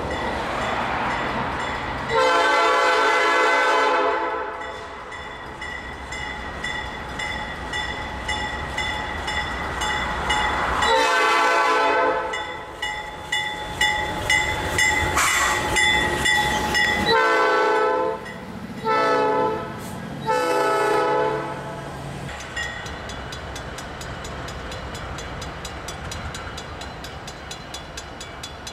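A diesel freight locomotive's multi-note air horn sounds a series of blasts, two long ones followed by several shorter ones, as the train comes past. Under the horn and after it is the steady rumble of the engine and wheels on the rails.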